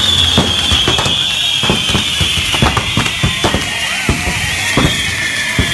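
Fireworks on a burning pyrotechnic torito (firework bull): a continuous high whistle that slowly falls in pitch, over many sharp, irregular firecracker bangs and crackles.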